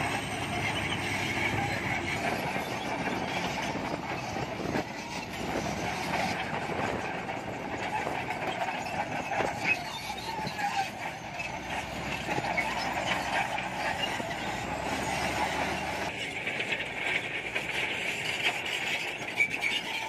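Shantui SD22 crawler bulldozer running under load, its diesel engine going steadily while the steel tracks squeal and clatter as it moves.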